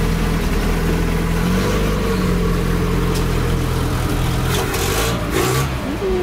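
Datsun 510's engine running at low revs as the car sets off slowly. The engine note rises a little about a second and a half in, then settles.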